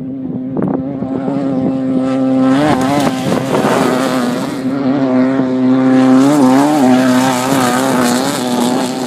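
An off-road race vehicle's engine running at high revs as it comes up and passes, loudest about six seconds in. Its pitch briefly dips and rises around three seconds in and again around six and a half seconds in as the throttle is worked.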